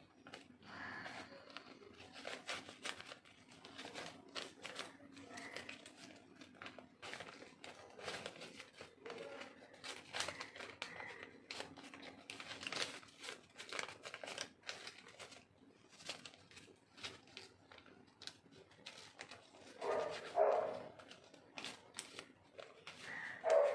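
A sheet of white paper being crinkled and twisted by hand into a thin roll: irregular papery rustling and crackling throughout, with two brief louder sounds, about twenty seconds in and at the very end.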